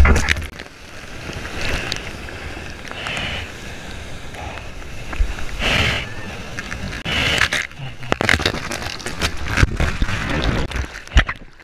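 Breaking surf wave rushing and splashing around a camera at water level, with water slapping against the camera housing in several swelling whooshes. Many short sharp splashes and taps come in the second half.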